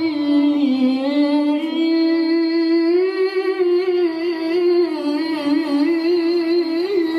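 Male qari reciting the Quran in melodic tilawah style into a handheld microphone. He holds one long phrase, the pitch stepping slowly down and up, with quick wavering ornaments about two-thirds of the way through.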